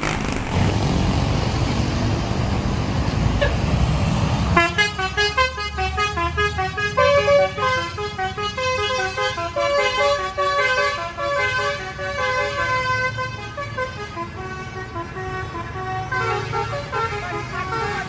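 A tour bus's 'telolet basuri' musical air horn playing a melody of quick stepped notes, starting about four and a half seconds in after a stretch of engine and road noise, and growing fainter near the end as the bus pulls away.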